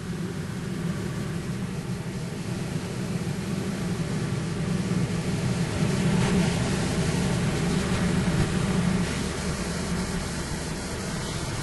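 Engines of the thruster car ferry Prins Johan Friso running under way: a steady low drone with a noisy hiss over it, swelling a little and easing back.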